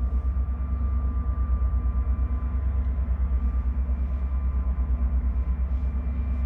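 Diesel engines of a towboat pushing a large river barge: a steady low rumble that throbs evenly several times a second, with a faint steady whine above it.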